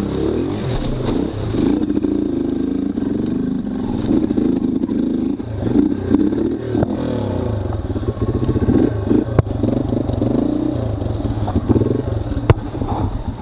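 Single-cylinder four-stroke Yamaha dual-sport motorcycle engine running at low speed, its revs rising and falling as it climbs a narrow trail, with rattling and a couple of sharp knocks. Near the end it slows to an even chug.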